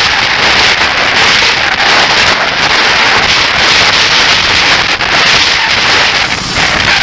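Loud steady rushing of wind over the camera microphone while cycling along a city street, with motor traffic mixed in.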